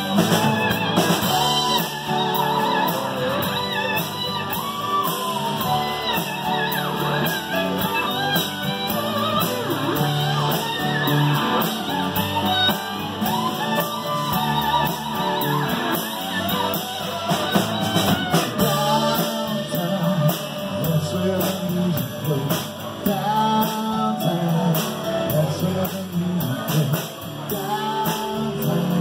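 A live rock band playing: acoustic and electric guitars, keyboard, bass and drums, with a melodic line sliding in pitch above the steady rhythm.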